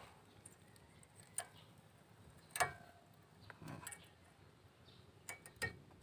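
A handful of light metallic clicks and taps as brake pad hardware is handled and fitted into a Suzuki APV disc brake caliper bracket. The loudest click comes about two and a half seconds in, with a brief ring.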